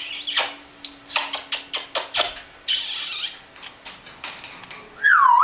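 African grey parrot making a rapid run of sharp clicks with a short hiss in the middle, then a loud whistle that swoops down and back up near the end.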